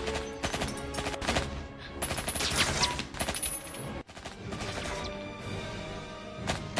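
Music mixed with rapid gunfire-like sound effects: a fast string of bangs and clicks over held tones, with a brief break about four seconds in.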